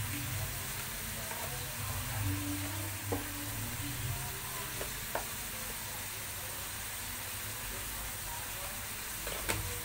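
Food stir-frying in a hot pan: a steady sizzle while a utensil stirs it, with a few sharp clicks of the utensil against the pan, the loudest near the end.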